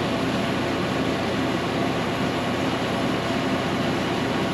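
Diesel engine of a Cooks AC-36 sawmill running steadily, powering the mill's hydraulics.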